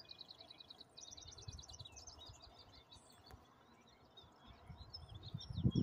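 Songbirds singing: two fast trills of evenly repeated high notes in the first two seconds, then scattered short chirps. A brief low rumble near the end.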